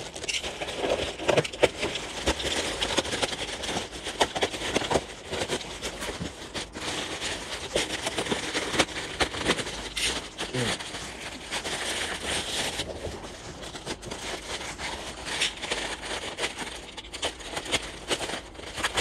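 Black plastic parcel wrapping crinkling and tearing as it is slit with a box cutter and pulled off a cardboard box, a steady run of rustles and crackles.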